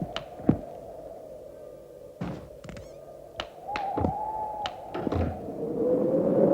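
A handful of dull thunks and knocks, several trailed by a quick falling swoop, over a steady droning tone that grows louder near the end.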